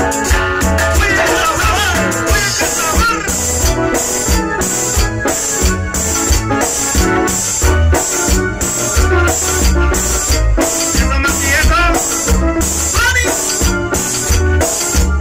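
Live tropical cumbia band playing a steady dance beat, with drum kit, heavy bass, shaker percussion and a wavering melody line.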